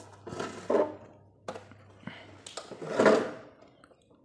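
Handling noise from an inverter welder's fabric carrying strap and case as they are gripped and moved: two brief rustling scrapes about two seconds apart.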